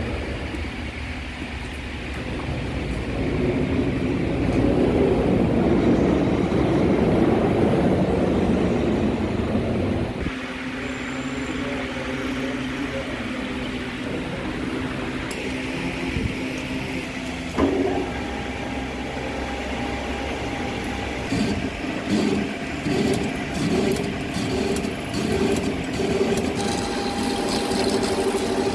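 Centre lathe running while a hydraulic cylinder barrel is machined to cut out its welds: steady machine hum and cutting noise. The sound changes abruptly about ten, fifteen and eighteen seconds in. From the last change a regular pulsing comes in.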